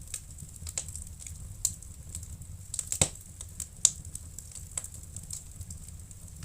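Wood fire crackling in a fireplace: irregular sharp pops and snaps, the loudest about three and four seconds in, over a steady low rumble.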